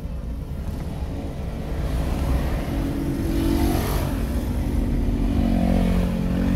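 A car being driven along a road, heard from inside the cabin: a steady low engine and tyre rumble, with the engine's hum growing clearer about halfway through.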